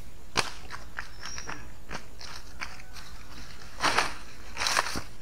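Footsteps crunching and snapping dry leaves and twigs, with scattered light cracks first and two loud crunches about four and five seconds in. A short high chirp sounds about a second in.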